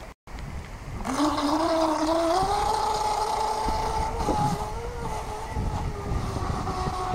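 Radio-controlled speedboat's 3600Kv brushless electric motor spinning a carbon-fibre propeller. Its whine comes in about a second in and rises in pitch as the boat accelerates away, then holds steady at speed.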